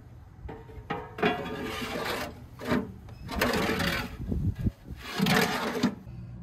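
Metal parts at the base of a kamado grill being scraped and rattled by hand in several short bursts of scraping and clatter.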